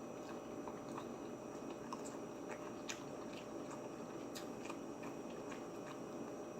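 A person chewing tender baked pork chop and buttery sautéed vegetables, with scattered small clicks and smacks of the mouth.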